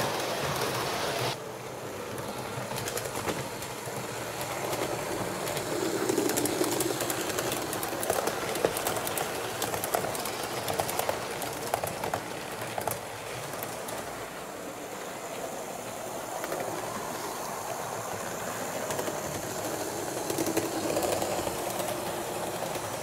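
HO scale model trains running on the track, with a run of quick clicks between about eight and thirteen seconds in. A bird coos low twice, about six seconds in and near the end.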